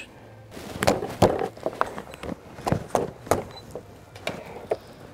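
A large kitchen knife forced through a live rock lobster's shell from the underside to dispatch it: a run of irregular sharp cracks and crunches of breaking shell, about ten in all.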